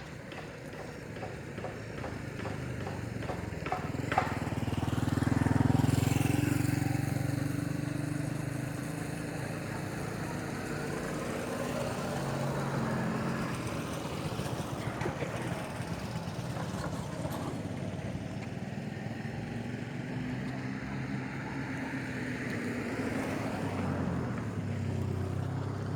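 A motor vehicle passing by, loudest about six seconds in, with engine noise from traffic carrying on and swelling again near the end.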